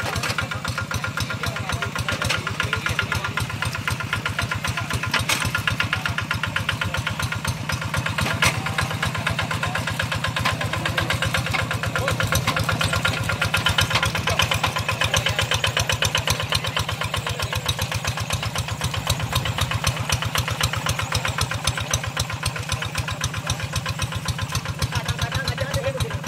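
Two-wheel hand tractor's single-cylinder diesel engine running steadily with an even, rapid chug. It is pulling a glebek puddling attachment through wet paddy mud for the second tillage pass.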